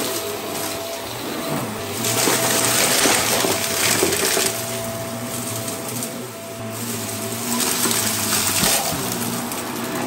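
Vax Mach Air Mk2 upright vacuum cleaner running on carpet, a steady motor whine under a rush of airflow as it sucks up dry debris. It grows louder and hissier on two pushes, about two seconds in and again near eight seconds.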